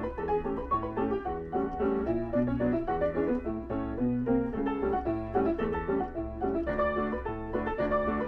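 Roll-operated player instrument playing a lively reel from a perforated paper music roll: quick keyboard notes over an even, alternating bass, with a steady low hum underneath.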